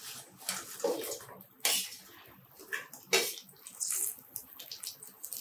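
Half-fried punugulu fritters sliding off a steel plate and dropping in batches into hot oil, each batch splashing in with a sharp spatter over the sizzling of the oil. This is the second fry, in oil reheated to give the fritters their colour.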